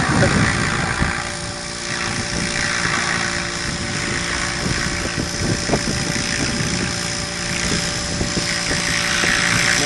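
Mikado Logo 800 Xxtreme electric radio-controlled helicopter in flight: a steady whir of the rotor blades with the motor's whine, growing a little louder near the end as it comes closer.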